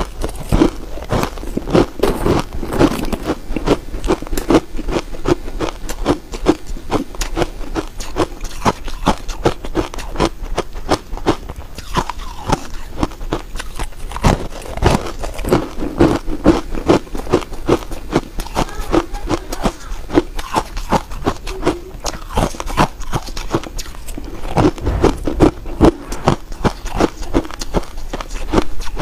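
Ice cubes dusted with matcha powder being bitten and chewed, a dense, continuous run of sharp crunches and cracks as the ice breaks between the teeth.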